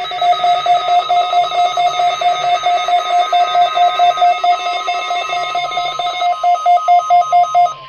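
Weather-radio warning alarm during the weekly test: a loud, rapidly pulsing electronic beep, about five pulses a second, over the steady 1050 Hz warning-alarm tone. The pulsing cuts off shortly before the end, leaving the steady tone.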